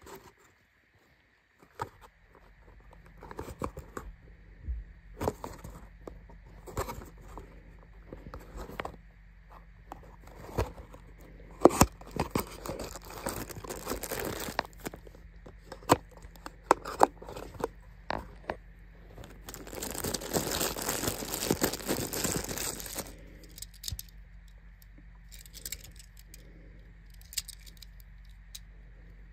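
Unboxing a die-cast toy car: the cardboard box is handled and opened with small clicks and taps, and the car's thin clear plastic wrapper is crinkled and torn off in two longer crackly spells, a few seconds in the middle and again about two-thirds of the way through.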